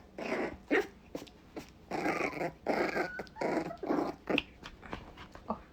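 Pembroke Welsh Corgi puppies growling in play, a string of short growls and grunts one after another.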